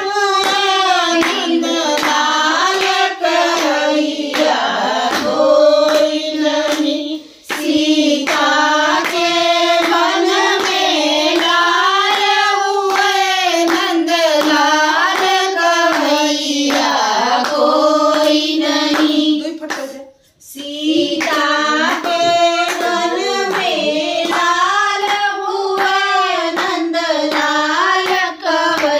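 Women singing a song with hand claps keeping time. The singing breaks off briefly twice, about seven and twenty seconds in.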